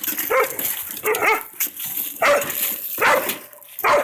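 A dog barking, about five short barks roughly a second apart.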